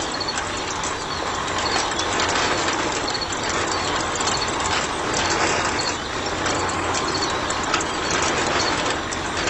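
A miniature model concrete mixer running, its drum turning with a steady mechanical noise.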